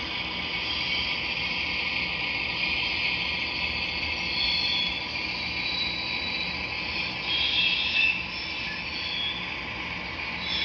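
Model train running along the layout track: a steady high-pitched whirring and rattle from the model gas-turbine locomotive's motor and the reefer cars' wheels rolling over the rails, with a slight rise about eight seconds in.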